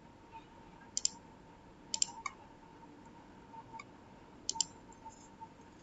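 Computer mouse buttons clicking: a few short sharp clicks, some in quick pairs, over a faint steady hum.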